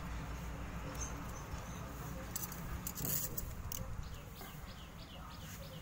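Masking tape being pulled off its roll and cut with scissors: a few sharp crackles and snips around the middle, over a steady low background rumble. In the second half a bird chirps rapidly, short high falling chirps about four a second.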